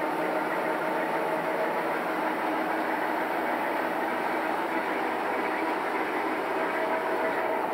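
A 2.2 kW brushed DC motor driving a DIP-300 lathe runs steadily after start-up, together with the hum of three heat guns wired in series as ballast to limit the motor's start-up current. The sound is an even mechanical running with a few steady tones and no change in level.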